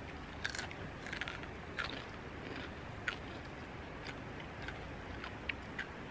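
A wrapper being handled on a picnic table: scattered short crinkles and clicks over a steady faint outdoor hiss.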